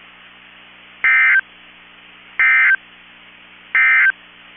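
NOAA Weather Radio sending the EAS end-of-message code: three short bursts of warbling SAME data tones, each about a third of a second long and about 1.3 s apart, marking the end of the alert message. A low steady hum and faint hiss from the radio lie under them.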